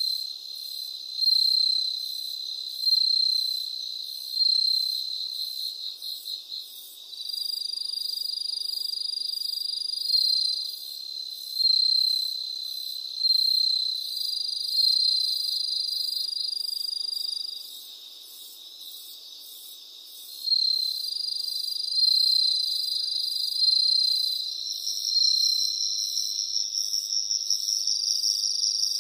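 Insects chirping: several high trills overlap, one pulsing about every second and a half while others are held for a few seconds at a time.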